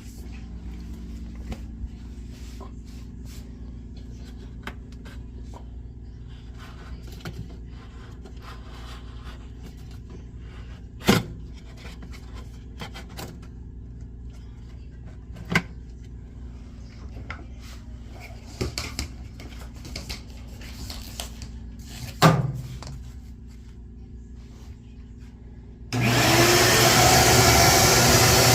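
Low steady hum with a few scattered knocks and clicks, then near the end a loud, steady whirring noise starts abruptly: the Whirlpool front-load washer's drain pump running loudly, a sign of its clogged drain filter.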